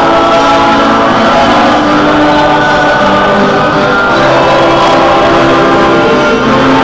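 Music: a choir singing with instrumental backing.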